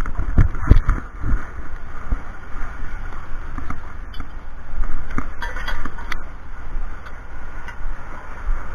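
Several sharp knocks and clicks, bunched in the first second and again about four to six seconds in, over a steady low rumble.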